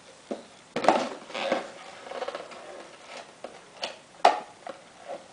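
Small toys being handled, with a string of light knocks and clatters and a couple of sharper taps about four seconds in.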